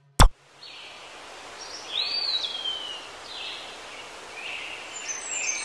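A single sharp click right at the start, then steady outdoor background noise with occasional bird chirps.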